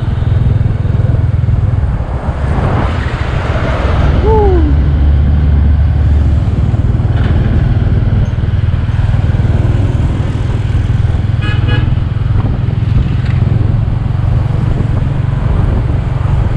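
Steady rumble of a motorbike riding along a busy highway, with other traffic passing. About four seconds in a vehicle goes by and a horn sounds briefly, falling in pitch. A short horn toot comes about twelve seconds in.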